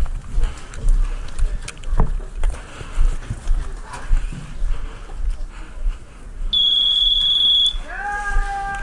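Thumping steps and gear rattling as a player moves on the airsoft field. About six and a half seconds in, a high electronic buzzer sounds steadily for about a second, the flag buzzer going off for the capture. Near the end, a lower horn-like tone slides up and holds.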